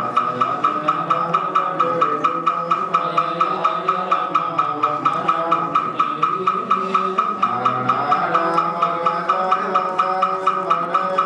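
Buddhist funeral chanting: a voice intoning sutras over a wooden fish (mõ) struck in a steady beat of about four strokes a second.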